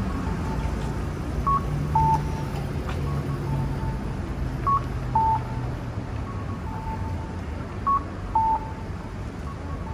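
Japanese pedestrian crossing signal's speaker playing the electronic cuckoo call ("kak-ko") that tells blind pedestrians the walk light is green: a short higher note, then a longer lower one. It sounds three times about three seconds apart, with fainter answering calls in between. A low traffic rumble runs underneath.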